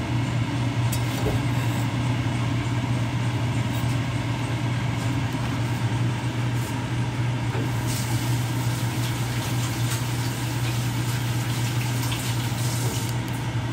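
Steady low mechanical hum that runs on without a break.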